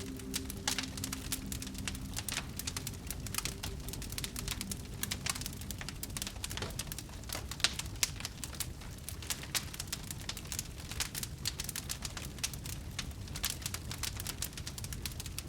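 Fire crackling: irregular sharp snaps and pops, several a second, over a steady low rumble of the burning.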